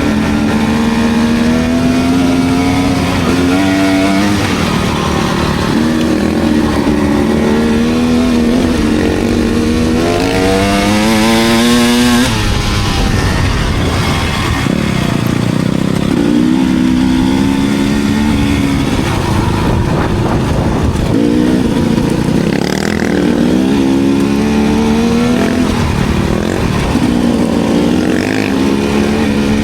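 Enduro motorcycle engine under way on a dirt trail, revving up and falling back again and again. About ten seconds in it climbs in a long rising rev that cuts off sharply, followed by a few seconds of rough rumble before the revving resumes.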